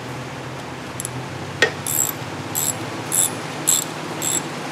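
Socket ratchet wrench clicking on its back-strokes as a bracket bolt on the turbo's VGT solenoid is run down: one sharp click, then a short burst of ratchet clicks a little over every half second.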